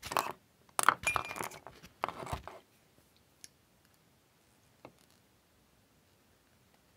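Small metal jewellery parts and a hand tool clinking and clicking against each other in three quick bursts over the first few seconds, then two faint single clicks.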